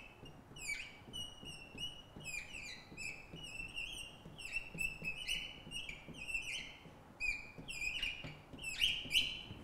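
Marker squeaking on a glass lightboard while an equation is written: a quick run of short, high squeaks that slide up and down in pitch, loudest near the end.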